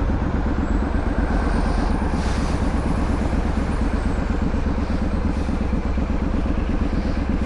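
Triumph Street Scrambler's 900 cc parallel-twin engine running steadily through a louder aftermarket exhaust, a rapid even exhaust pulse with most of its weight low in pitch.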